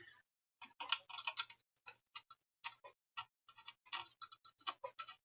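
Light, irregular clicks and taps, a few a second, of small objects being handled on a workbench, over a faint low hum.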